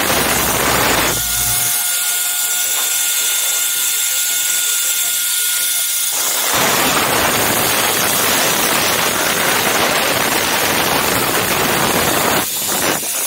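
A zipline trolley's pulleys run along the steel cable with a steady whir, under heavy wind rush on the pole-mounted camera's microphone as the rider speeds along. The wind noise is heaviest at the start and through the second half.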